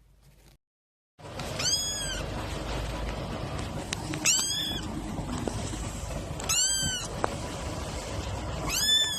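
A domestic cat meowing four times, about two seconds apart, each meow rising and then falling in pitch, over a steady background hiss. The meows begin after a brief gap about a second in.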